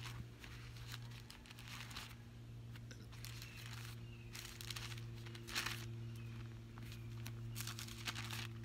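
Pages of a Bible being leafed through: a run of short paper rustles and crinkles about a second apart. A low steady hum sits underneath.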